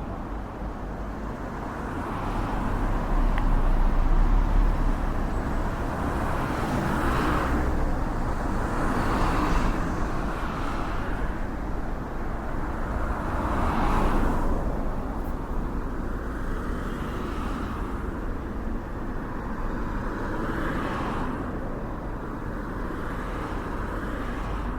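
Road traffic noise, with several vehicles passing one after another.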